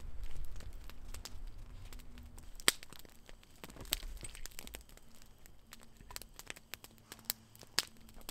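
Wood campfire crackling, with scattered sharp pops and snaps at irregular intervals, the sharpest a little under three seconds in.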